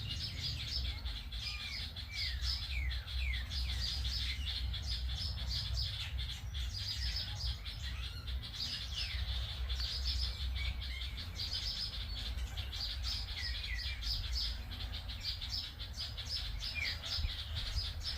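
A chorus of small birds chirping and twittering continuously, with occasional short downward-sliding whistles from another bird, over a steady low rumble.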